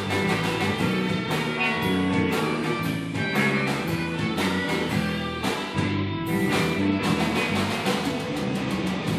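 Live blues-rock band playing an instrumental passage of a shuffle without singing: electric guitars over bass guitar, with drum hits marking a steady beat.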